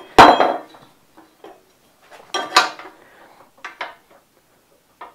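A cut piece of steel box section clanking against a steel frame as it is set in place and handled: a loud ringing clank just after the start, a second clank about two and a half seconds in, and lighter taps near the end. The piece rocks on the frame, wobbling because of a weld bead underneath it.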